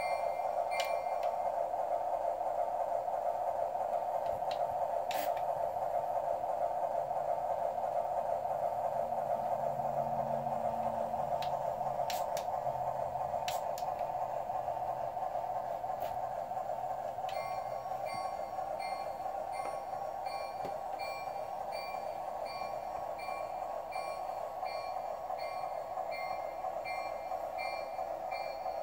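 Sound from an American Flyer model train layout: a steady electronic drone, with a high repeating bell ding briefly at the start and again from a little past halfway on. A few sharp clicks are heard along the way.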